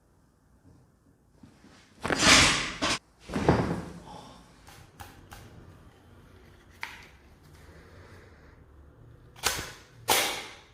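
Chiropractic adjustment: two loud sudden thumps about two and three and a half seconds in, then a few short sharp clicks, and two more thumps near the end.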